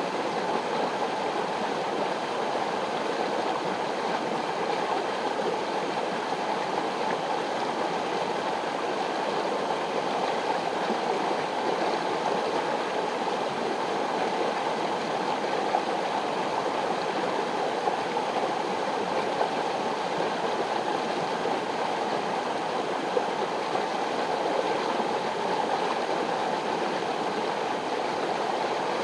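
Mountain river rushing steadily over rocks, a constant even flow of water.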